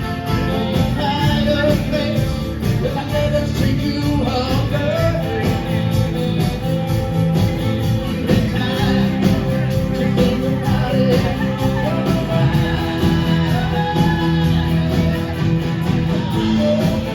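Live rock band playing at a steady beat: drums, bass, guitars and keys, with a wavering melodic lead over them.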